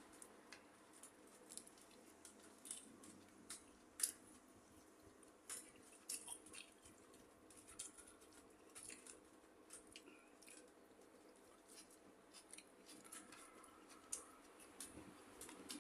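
Quiet, scattered crunching and clicking of someone eating spicy cucumber salad, with one sharper click about four seconds in.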